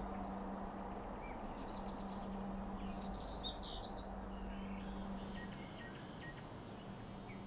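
Birds chirping in short scattered calls, a cluster of louder ones about three and a half to four seconds in, over outdoor ambience with a steady low hum.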